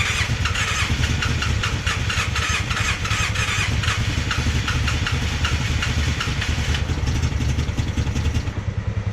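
Polaris Sportsman 600 ATV's twin-cylinder engine turning over and trying to fire, with a rapid, uneven pulsing that never settles into a clean run. The engine is struggling from very low compression, about 120 psi in one cylinder and 30 psi in the other.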